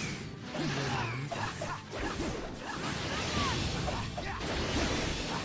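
Music with dramatic action sound effects: repeated whooshes and crashing impacts.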